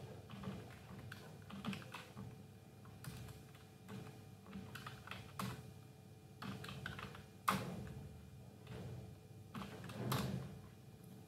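Computer keyboard typing: irregular runs of keystrokes as code is entered, with one sharper, louder key strike about two-thirds of the way through.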